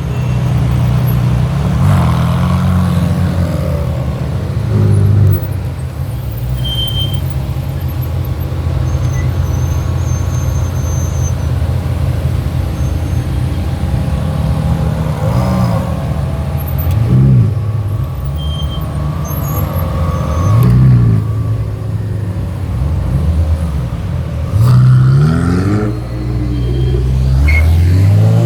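Ferrari sports cars rolling past at low speed, their engines running steadily, with about six short revs that sweep the engine pitch up and back down.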